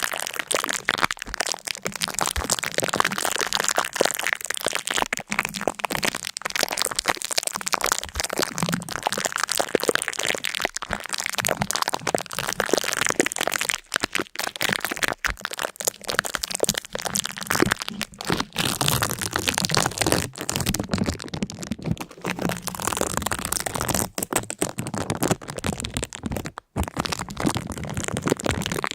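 Dense, continuous crackling and crunching: a rapid run of sharp cracks with only a few brief breaks.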